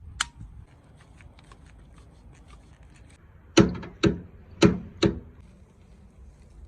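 Click-type torque spanner clicking off as refrigerant flare nuts are tightened to torque: one sharp click, then four loud clicks about half a second apart a few seconds later.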